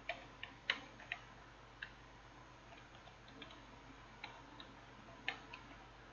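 About nine faint, irregularly spaced clicks from a computer keyboard: single keystrokes while text is being edited.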